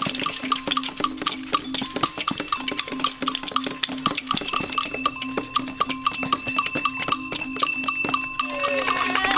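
Hand percussion played together in a steady quick rhythm: shakers, bells and a tambourine, with a held low note underneath.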